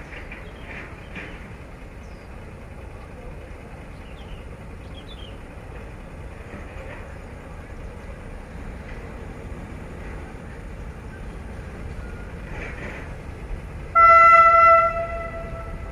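Diesel locomotive horn giving one long single-note blast near the end, a warning as the train approaches the level crossing. Before it there is only a low, steady outdoor rumble.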